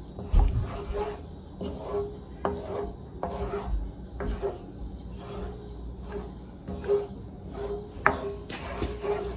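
Wooden spoon stirring a thick cheese sauce in a metal pan, scraping the bottom and sides in repeated strokes, with a sharp knock of the spoon against the pan about eight seconds in.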